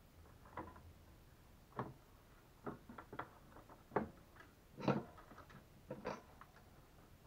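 Irregular light clicks and taps of small metal parts and tools being handled during soldering, about a dozen in all, the loudest about four and five seconds in.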